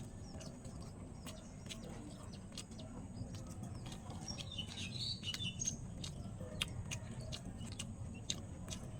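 Small birds chirping, most clearly around the middle, over a steady low hum, with many short sharp clicks throughout.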